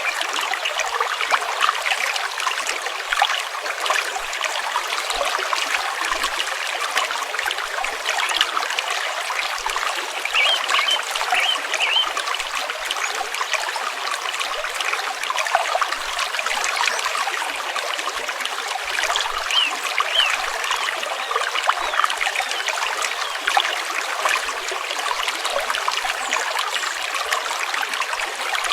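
Stream water flowing, a steady trickling and babbling.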